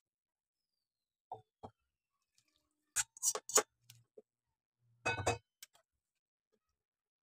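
A steel pot clinking and knocking against a ceramic mug as chicken stock is poured from it, with plopping splashes. A couple of faint knocks come first, then a loud cluster of clinks about three seconds in and a short ringing clatter about five seconds in.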